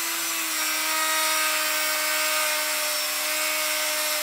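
Handheld high-speed rotary tool running at a steady pitch, its bit cutting into the plastic housing of an airbag resistor plug to take the top off.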